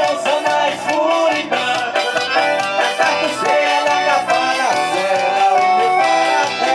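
Live forró band playing: a melody line of held and sliding notes over a steady, even dance beat.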